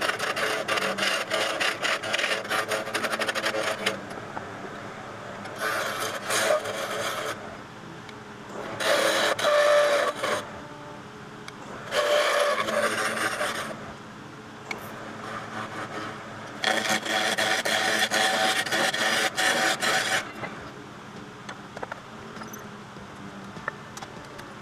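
A wood lathe spins a wooden gavel handle while a steel turning tool cuts into it in about five separate passes of a few seconds each, a rough scraping each time. Between the cuts only the lathe runs, and it is quieter from about twenty seconds in.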